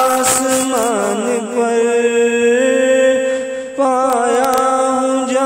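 Devotional singing of an Urdu Sufi kalam: a voice drawing out a melismatic line, wavering notes that settle into long held ones. There is a short break just before four seconds in, and then a new phrase starts.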